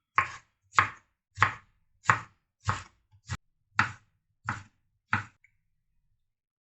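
Knife slicing through tomatoes onto a cutting board, about nine even strokes at a steady pace of roughly one and a half a second, stopping near the end.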